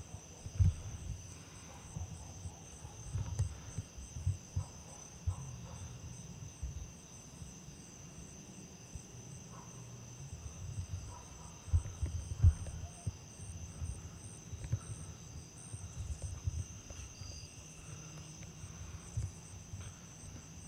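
Chorus of night insects trilling steadily at a high pitch, with irregular low thumps underneath.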